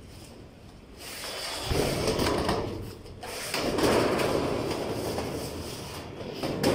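Corrugated metal roofing sheets sliding and scraping against each other in three long, swelling rasps.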